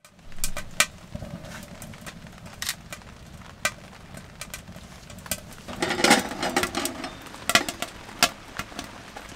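Firewood crackling and popping as it burns inside a small camp wood stove: sharp, irregular pops, with a denser run of crackling about six seconds in.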